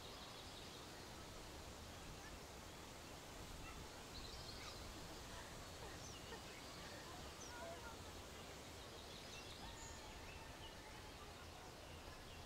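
Faint outdoor nature ambience: a steady soft hiss with scattered short chirps and calls from several small birds.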